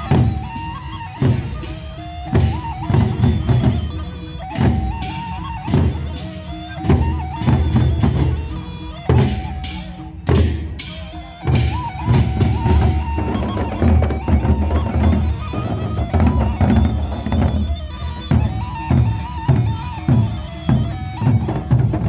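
Gendang beleq ensemble playing: large Sasak barrel drums beaten with sticks in a dense, driving rhythm, with crashing cymbal strokes and a high, piping melody line over the top.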